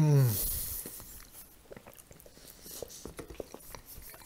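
A man gives a short closed-mouth hum that falls in pitch at the start, the loudest sound here. Then comes close-miked chewing of a mouthful of mashed potato, with small wet mouth clicks.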